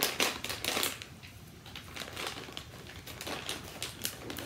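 Plastic potato chip bag crinkling as it is torn open at the notch: a dense run of sharp crackles in the first second, then softer, scattered crinkles.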